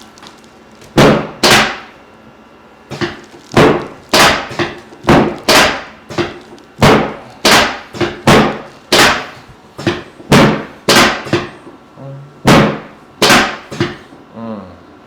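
A run of about twenty loud, sharp knocks, one or two a second and often in pairs, each with a short ringing tail.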